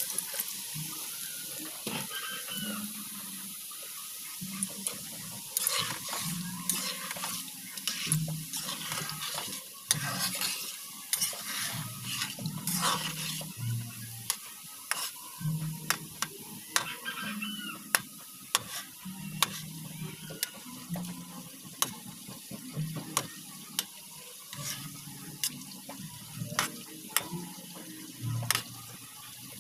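Saba bananas frying in hot oil in a wok: a steady sizzle, with many sharp clicks and scrapes of the metal spatula and tongs against the pan as the pieces are turned.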